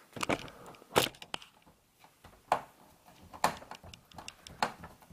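Irregular sharp clicks and knocks, about one a second, of a screwdriver and screws being handled against an all-in-one computer's chassis while it is screwed back together.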